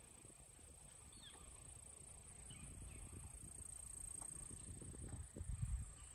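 Insects trilling steadily in a high, evenly pulsing buzz, with a couple of faint bird chirps in the first half and low wind rumble on the microphone that grows stronger near the end.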